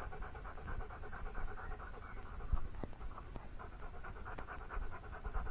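German Shepherd Dog panting rapidly in a quick, even rhythm, with a few faint clicks around the middle.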